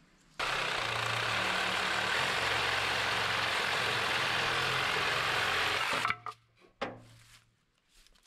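A power tool running steadily at an even level, starting suddenly and cutting off after about five and a half seconds, followed by a couple of sharp clicks.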